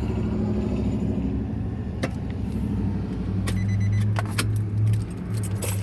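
Steady low hum of a vehicle, with several sharp clicks and a jangle of keys from about two seconds in as the OBD2 scan tool is unplugged and handled.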